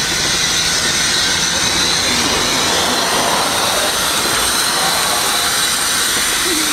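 Steam hissing steadily from the Ffestiniog Railway Double Fairlie locomotive Merddin Emrys as it stands in steam, a loud, even hiss.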